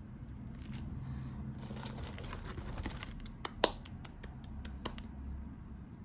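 Handling of a metal plaque in its packaging box: plastic wrap crinkling and rustling, with scattered light clicks and knocks and one sharp smack about three and a half seconds in.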